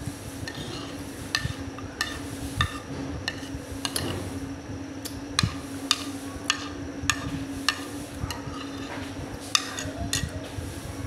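Eating chickpeas and rice by hand from a plate: scattered sharp clicks and smacks, roughly one or two a second, over a steady low hum.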